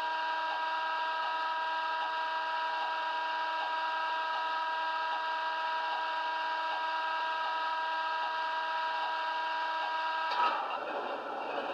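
Hornby Class 60 model's DCC sound decoder playing its Howes diesel engine sound through a small speaker, with the locomotive standing still: a steady pitched whine. About ten seconds in there is a click, and the whine gives way abruptly to an even hiss.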